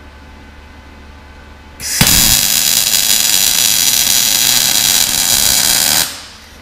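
MAG welding arc from a Sherman DigiMIG 200 Dual Puls MIG/MAG welder, struck about two seconds in and held for about four seconds as a steady sizzle, then cut off.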